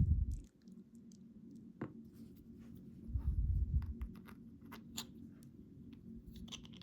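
Faint scattered clicks and light taps of small lock parts and tools being handled as a padlock is reassembled, with a dull low thump at the start and another about three seconds in.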